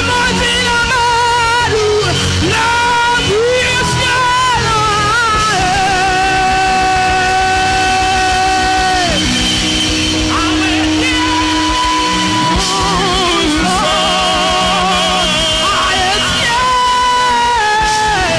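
Worship music: a singer holding long notes with vibrato and sliding between pitches over band accompaniment.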